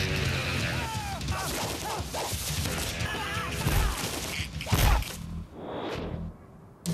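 Action-film style soundtrack music under men's shouting, with two heavy thumps about four and five seconds in. The sound then falls away sharply just before the end.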